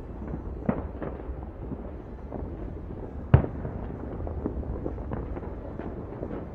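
Fireworks and firecrackers banging across the city at New Year, heard from a distance as scattered sharp pops over a low rumble, with one loud bang about halfway through.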